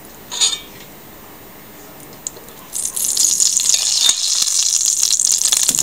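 Canola oil hitting a hot stainless-steel frying pan and starting to sizzle: a steady, high hiss with small crackles that sets in about three seconds in and keeps going.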